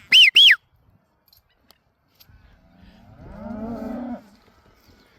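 Two short, loud rising-and-falling whistles right at the start, typical of a stock handler's whistle command to a working dog, followed about two seconds later by a single drawn-out moo from a cow.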